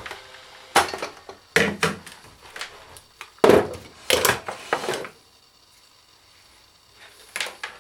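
Plastic housing of a Makita 18V lithium-ion battery pack being pressed and fitted together, a series of hard knocks and clicks, the loudest about three and a half seconds in, then a pause and a couple more clicks near the end.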